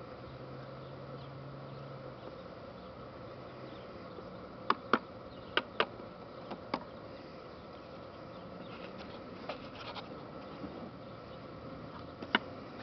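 Sharp plastic clicks and knocks as model tanks are handled and set down on a wooden board: a quick cluster about five seconds in, a few fainter ticks later, and one sharp click near the end. A steady faint hum runs underneath.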